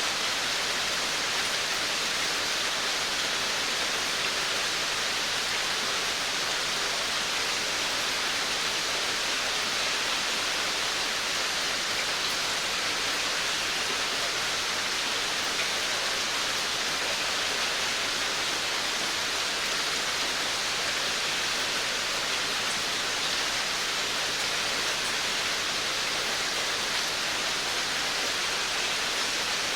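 Steady rain falling around a veranda: an even hiss with no single drops standing out, unchanging throughout.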